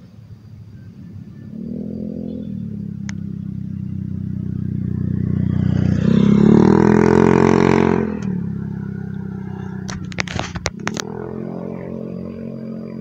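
A motor vehicle's engine passing close on the road, growing louder to a peak about six to eight seconds in and then falling away, with a brief clatter about ten seconds in.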